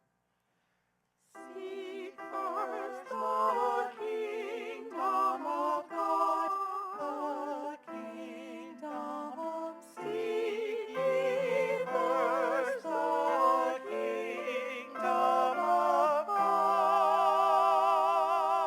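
Church music: a melody sung with strong vibrato over piano accompaniment, starting about a second in and closing on a long held chord.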